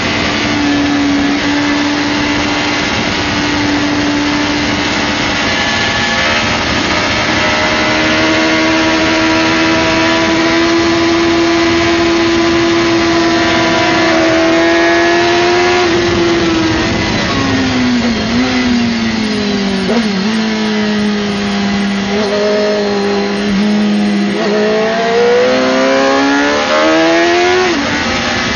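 Suzuki GSX-R600 inline-four engine at high revs, heard from on board over a rush of wind. Its pitch holds and climbs slowly, then falls in steps about halfway through as the bike brakes and changes down. Near the end it rises and drops sharply several times as the bike accelerates up through the gears.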